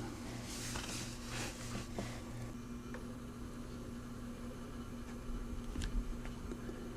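Steady low hum with faint rustling and soft clicks in the first two seconds, and a single sharp click about six seconds in.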